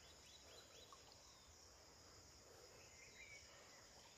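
Near silence: a faint steady high insect drone, with a few faint short chirps.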